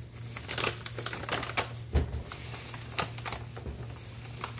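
Plastic sweetener pouch crinkling and crackling as gloved hands work it open, a run of irregular sharp crackles, with a dull knock about two seconds in.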